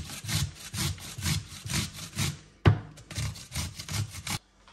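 Cucumber being grated on a hand grater: quick rasping strokes, about four a second, broken once by a sharp knock a little past halfway, and stopping just before the end.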